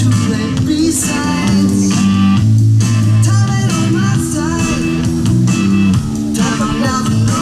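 Rock music with electric guitar and bass guitar, loud and steady.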